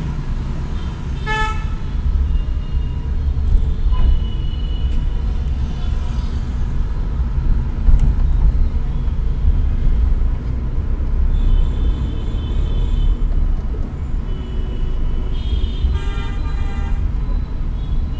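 City traffic heard from inside a moving car: a steady low road rumble, with vehicle horns tooting several times. There is a short toot about a second in, fainter ones around the middle, and a longer, stronger one near the end.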